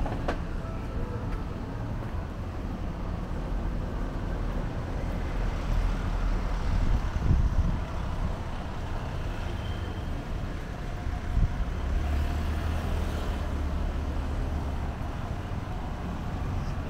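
Street traffic: a steady low rumble of vehicles going by, swelling louder about seven seconds in and again briefly near eleven seconds.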